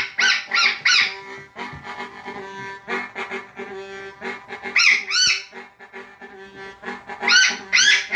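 Blues harmonica on a 365 bass harp, holding low chord tones. Over it come clusters of short, loud arched calls from a red-sided eclectus parrot: a quick run at the start, another about five seconds in, and a third near the end.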